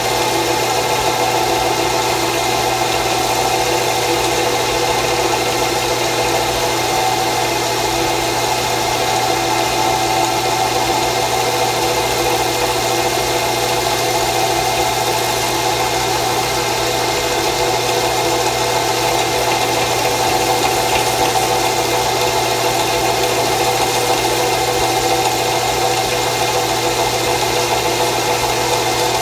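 Drill press running steadily, spinning a homemade suede-covered wooden burnishing wheel with the edge of a leather belt held against it to burnish wax into the edge; an even, unchanging motor hum.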